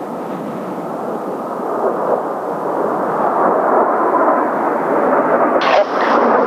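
Jet engine noise of a Blue Impulse Kawasaki T-4 in flight, a broad rushing roar growing louder as the aircraft approaches. Near the end a voice comes in over a radio.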